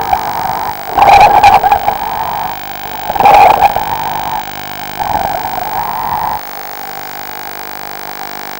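A diver's breathing heard through the diving communication line: four loud rushing breaths, the longest about five seconds in, then a steady electrical hum on the line.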